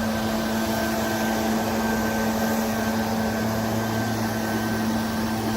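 Small petrol engine of a handheld trimming tool, such as a gas hedge trimmer, running steadily with an even, unchanging pitch.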